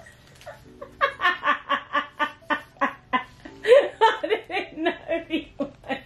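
A woman laughing hard in two long bouts of quick, evenly spaced ha-ha pulses, about three or four a second, starting about a second in.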